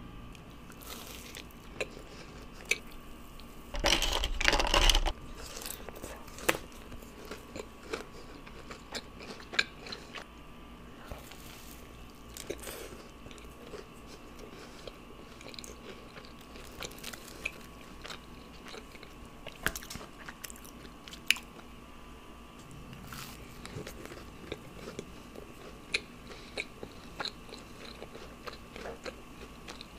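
Close-miked eating of large soft Crumbl cookies: bites and chewing with many small wet mouth clicks, over a faint steady hum. A loud noisy burst lasting about a second comes about four seconds in.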